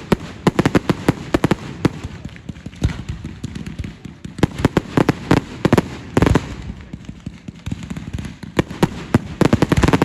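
Fireworks going off: rapid sharp bangs and crackles in three dense bursts, with one heavier bang about six seconds in.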